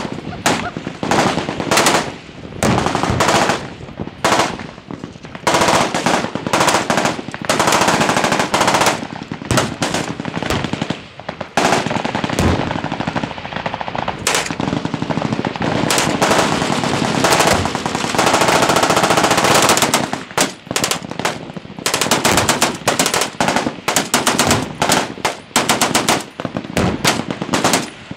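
Several machine guns firing at once, in overlapping bursts broken by two long, unbroken strings of continuous fire near the middle.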